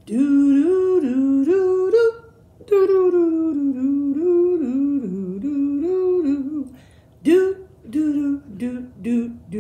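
A woman humming a wordless tune in short stepped notes: two phrases with a brief pause between, then choppier vocal sounds about seven seconds in.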